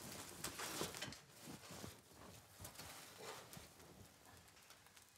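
Blacksmith's forge fire rushing and crackling, with scattered light clinks and knocks of tongs shifting a piece of iron in the burning coals. The rush of the fire is strongest in the first second or so, then fades to a faint crackle with small knocks.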